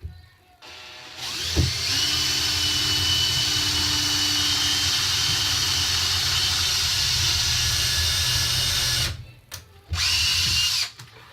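Power drill with a diamond-tipped bit boring pilot holes through HardieBacker cement board, which is tough to get through. The drill runs steadily with a fixed whine for about seven seconds, stops, then runs once more in a short burst near the end.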